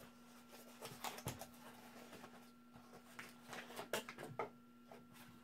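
Scattered light clicks and taps as a small cardboard box is opened and a small black case from the saw kit is handled, over a faint steady hum.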